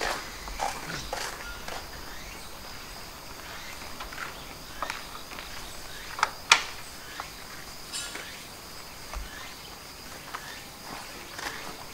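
Slow footsteps of Shinto priests scuffing across sandy, gravelly ground, with scattered light clicks and knocks, one sharper knock about halfway through. Insects chirp steadily underneath.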